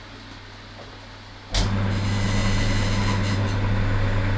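Sealey pillar drill switched on about one and a half seconds in, with a sharp click, then its electric motor and spindle running steadily with a strong low hum and a high hiss.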